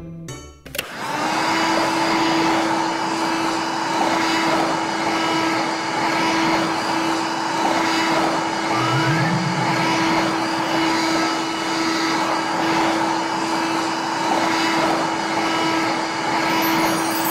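Toy vacuum cleaner switched on about a second in and running with a steady motor hum.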